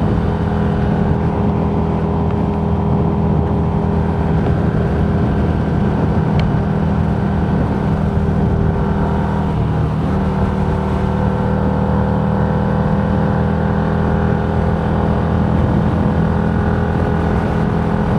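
A vehicle cruising at a steady speed, heard from on board: a steady engine drone with road noise.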